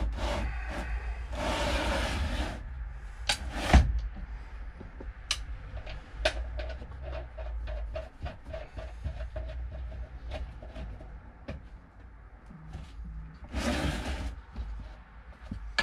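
Hands handling the metal seat-base parts with a sharp knock, then a socket ratchet clicking in a steady run as the 17 mm nuts holding the swivel base are wound on. Rustling handling noise near the end.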